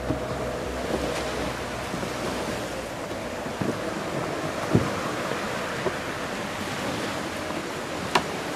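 Steady rush of sea surf with wind buffeting the microphone, broken by a few sharp knocks.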